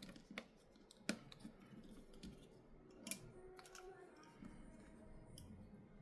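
A few faint, sharp clicks and taps of small phone parts and tools being handled as a smartphone is reassembled, the loudest about one and three seconds in.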